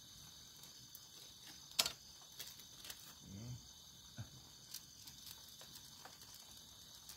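Faint, steady chirring of night insects, with a few scattered clicks and taps, the sharpest about two seconds in.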